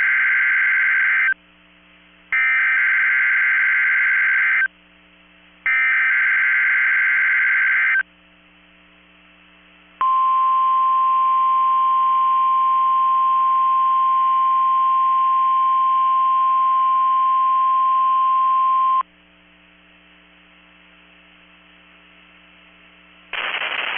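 NOAA Weather Radio broadcast of a Required Weekly Test. The SAME digital header sounds as three harsh, screechy data bursts of a couple of seconds each, with short pauses between. After about two seconds of hum, the steady 1050 Hz warning alarm tone holds for about nine seconds and then cuts off.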